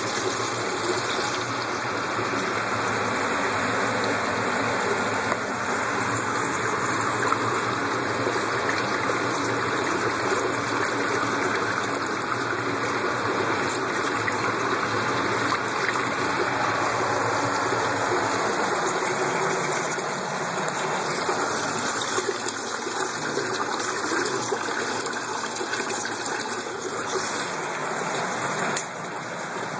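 Water running and splashing steadily over the top of an enclosure and down a drain hole.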